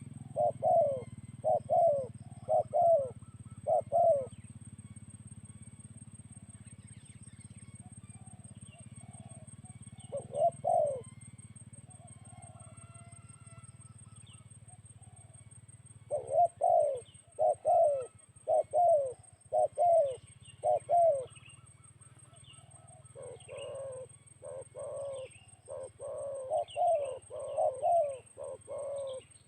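Spotted doves cooing: bouts of short, deep, repeated coo notes, with a long pause in the middle and a dense run of calling near the end.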